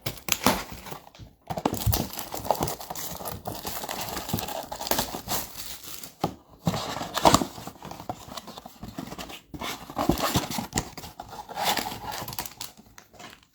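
Plastic wrapping and cardboard of a trading-card blaster box being torn open and crinkled, in irregular rustling bursts with short pauses, as the box is unwrapped to get at its foil packs.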